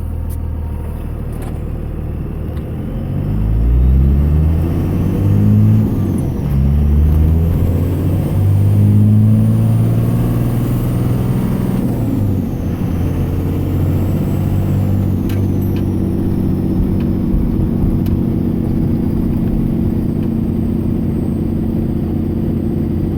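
2002 Cummins 24-valve 5.9-litre inline-six turbodiesel heard from inside the cab, pulling up through the gears in about four rising surges, then running steadily at cruise. The owner hears the knock he is chasing in it, though he wonders whether it is just diesel combustion noise.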